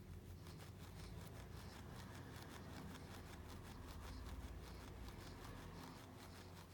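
Faint rustling with many small irregular clicks over a steady low hum.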